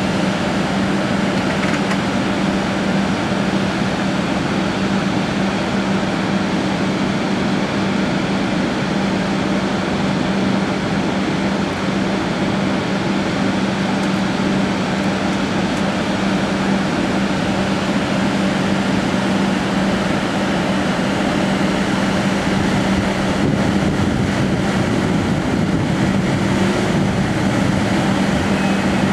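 Rooftop enclosed belt conveyor running steadily: a constant hum under an even rushing machine noise that does not change.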